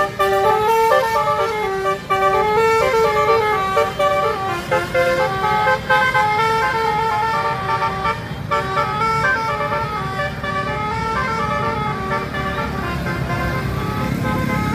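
Tour bus's Basuri multi-tone musical horn playing a melody of short held notes that step up and down, over the low rumble of traffic. The tune grows fainter in the last few seconds.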